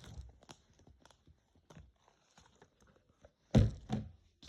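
Slime being pried and pulled out of its plastic tub: faint scattered clicks and crackles, then two louder short thuds about three and a half seconds in.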